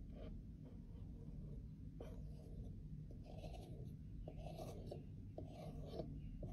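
Craft-knife blade scraping caked pressed powder off a compact's lid in short scratchy strokes, about four of them from about two seconds in.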